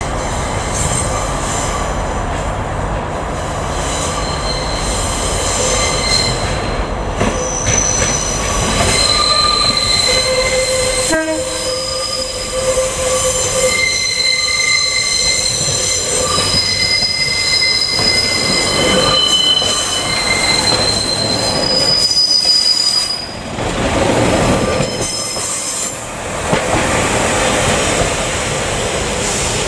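A rail vehicle running on the track, its wheels squealing in several high whining tones that come and go and change pitch, over a rumble of running gear.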